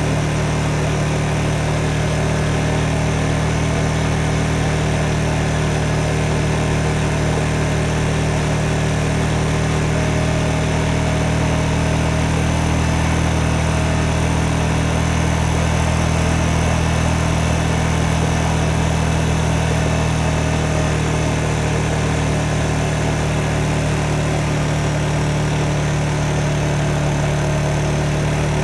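Motorcycle engine idling steadily at an even, unchanging speed.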